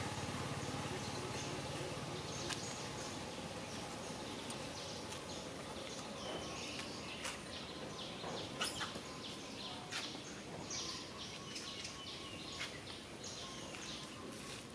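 Outdoor forest ambience: a steady background hiss with scattered short, high bird chirps and a few faint clicks.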